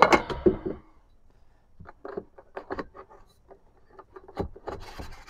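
Handling noise from a cranked aluminium table leg being set into its metal mounting bracket: a loud clatter at the start, then scattered light clicks and taps, and a short rubbing scrape near the end.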